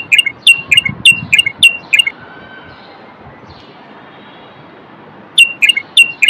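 Common bulbul singing: quick runs of short, sharp notes, about four a second. The first run stops about two seconds in, and the next begins near the end.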